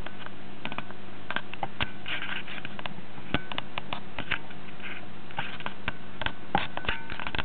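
Convection oven running with its fan on: a steady hum, with irregular light clicks and crackles throughout.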